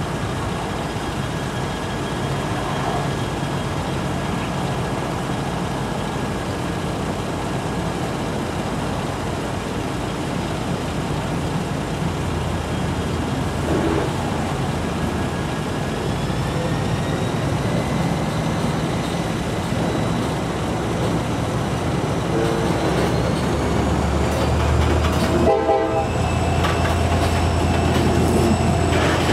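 EMD GP39-2 diesel-electric locomotive working a heavy train of loaded coal hoppers. Its low engine drone grows about halfway through, and whines rise in pitch as it throttles up. After a short break near the end, the drone is louder and steady as the hoppers roll by.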